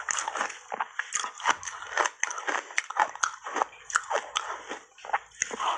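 Ice coated in matcha milk powder being crunched and chewed in the mouth: an irregular run of sharp crunches, several a second, with a brief lull near the end.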